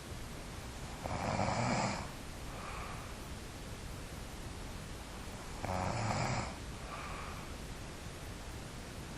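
A person snoring in sleep: two loud snores about four and a half seconds apart, each followed by a fainter, shorter sound, over a steady background hiss.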